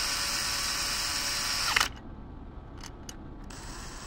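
Cordless drill/driver driving the mounting screws of a duplex outlet into an electrical box. A steady motor whine stops abruptly with a click a little under two seconds in, and a second, quieter run follows near the end.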